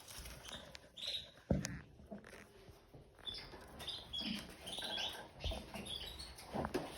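Red factor canaries making short, scattered chirping calls in their cage, with a few sharp knocks in between.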